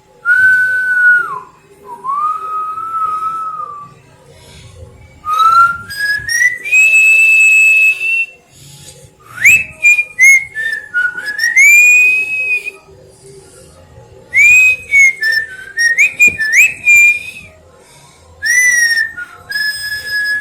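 Whistling: a series of clear whistled notes in short phrases, many sliding upward in pitch, with brief pauses between phrases.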